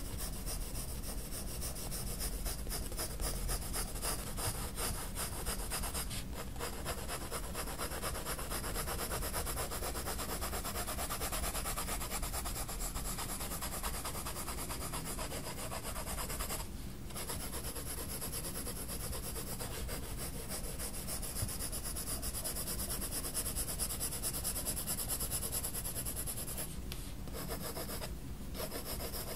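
Faber-Castell Polychromos colored pencil shading on sketchbook paper: many quick rubbing strokes, stopping briefly a few times as the pencil lifts.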